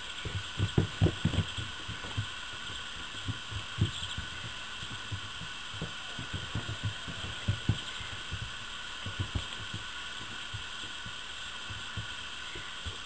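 Irregular low thuds and bumps of puppies romping and tugging on a rag across a floor covered in wood shavings, over a steady background hiss. The thuds are strongest about a second in.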